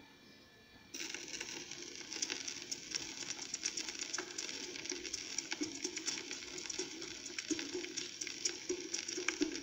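Surface noise of a 78 rpm shellac record under the stylus in the lead-in groove: a steady hiss full of crackles and sharp clicks, starting about a second in.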